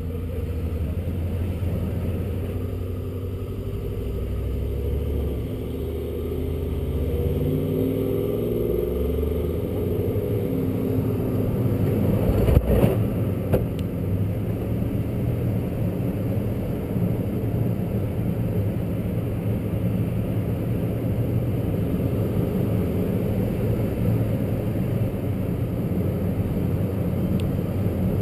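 Pickup truck engine running as the truck crawls up a slickrock slope; its note shifts up and down during the first several seconds, then holds steady. About halfway through come two sharp knocks a second apart.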